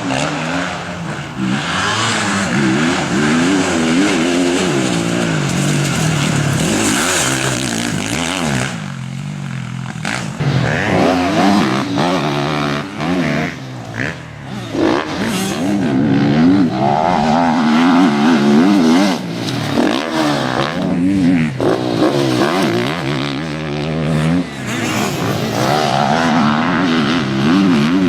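Motocross motorcycle engines revving, their pitch rising and falling over and over as the throttle opens and closes, with more than one engine heard at once. The sound drops briefly about nine seconds in, then picks up again.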